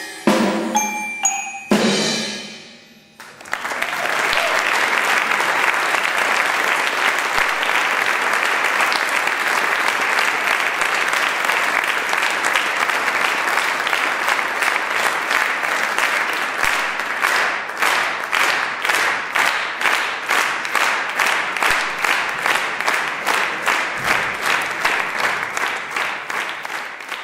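Closing strokes on marimba, xylophone and other mallet percussion, then audience applause that starts about three seconds in. About halfway through the applause falls into rhythmic clapping in unison, and it fades near the end.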